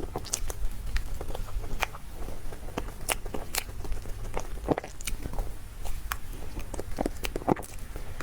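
A person chewing and biting soft dessert close to the microphone: irregular sharp mouth clicks and smacks, a few every second.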